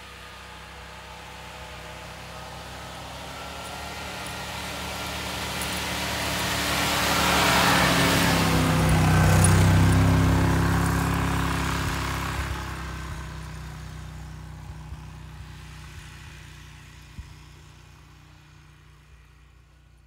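1967 Dodge Power Wagon plow truck's engine running as it plows snow, growing louder as it approaches, passing close about ten seconds in, then fading away.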